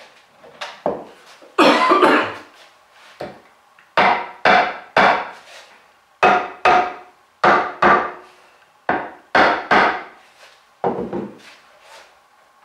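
A mallet knocking on the wooden legs and rails of a sawyer's bench frame: about fourteen sharp wooden knocks, many in pairs about half a second apart, with the loudest cluster about two seconds in.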